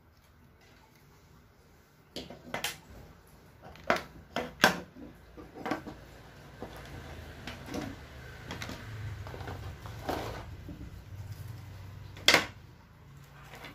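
Plastic wall chargers and USB cables being handled and set down on a wooden tabletop: after about two quiet seconds, a series of sharp taps and knocks with rustling between them, one of the loudest knocks near the end.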